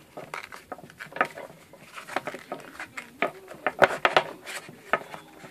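Hands handling a cardboard headphone box and a paper quick-start guide: irregular taps, clicks and rustles of card and paper.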